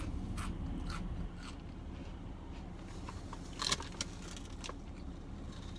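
Scattered soft rustles and clicks of plastic food wrapping and packaging being handled, with a louder crinkle a little before four seconds in, over a low steady hum.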